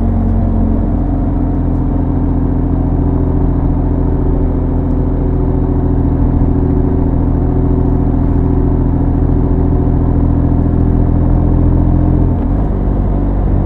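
Motorcycle engine and exhaust running steadily while the bike cruises along the road, heard from on the bike. The engine note changes near the end.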